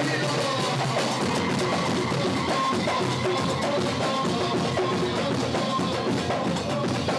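Lively dance music with a steady, driving drum beat and a repeating melody line over it.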